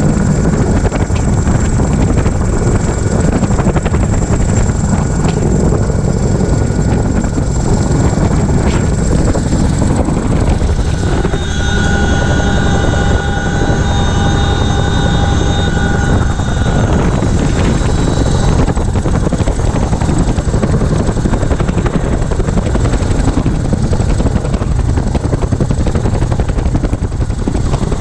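A CH-47F Chinook's rotors and engines running loud and steady, heard from inside the cabin at the open floor hatch, with a rush of wind. A set of steady high tones stands out above it for about five seconds in the middle.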